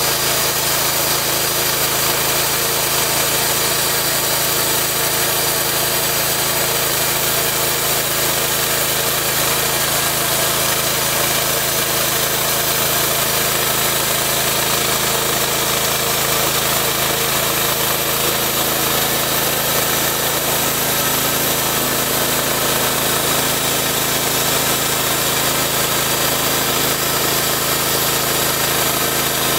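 Gasoline engine of a portable two-post bandsaw mill running steadily under load while the band blade saws lengthwise through a log.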